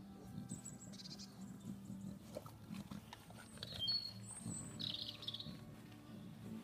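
Small birds chirping in short, high calls several times, over a low, uneven background rumble.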